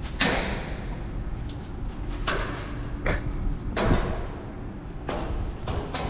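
A series of sharp slaps on a concrete floor, about six of them unevenly spaced, echoing in a concrete parking garage; the loudest comes just after the start and another about four seconds in.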